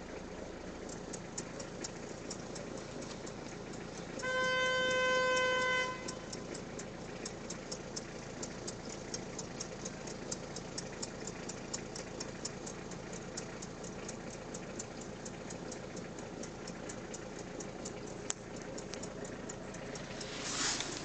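Peugeot 306 engine running steadily with a light, regular ticking of about four ticks a second, the engine noise under diagnosis. About four seconds in, a car horn sounds once for about two seconds, the loudest thing heard.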